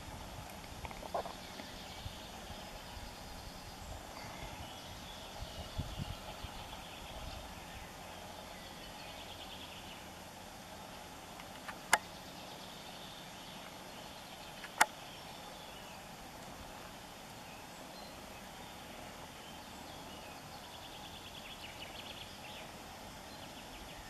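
Faint outdoor background with some faint high chirps, broken by two sharp clicks about twelve and fifteen seconds in.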